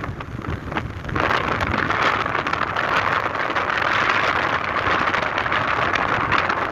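Strong wind gusting and rushing across an exposed ship's deck, buffeting the microphone; the gust swells about a second in and holds steady.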